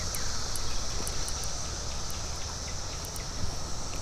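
Steady high-pitched drone of insects over a low rumble, with a few faint ticks scattered through.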